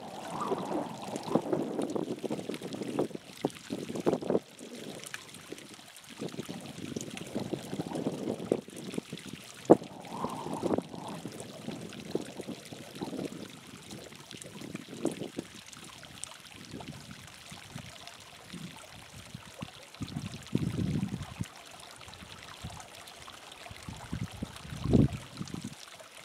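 Hot spring water trickling and running over rock, with irregular gusts of wind on the microphone; there is a louder gust about 21 seconds in and another near the end.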